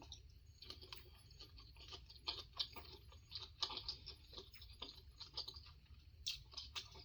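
Person chewing food: a faint, irregular string of wet mouth clicks and smacks, a few each second.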